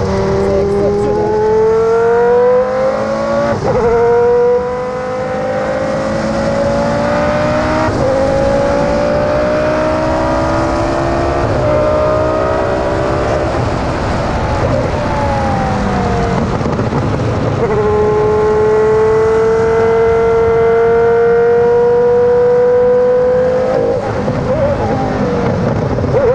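Prost Formula 1 car's V10 engine at full throttle, its pitch climbing through the gears and dropping at each upshift, about every four seconds. About halfway through the pitch falls as the car slows, then climbs again in one long pull before the next shift near the end.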